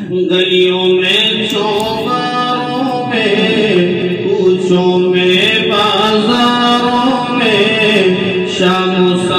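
A man singing a naat, an Urdu devotional song in praise of the Prophet, in long held notes that glide from pitch to pitch.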